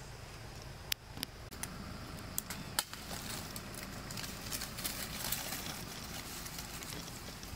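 Dry leaf litter crackling and rustling as monkeys move about on it, with a few sharp snaps in the first three seconds and the crackling densest in the middle.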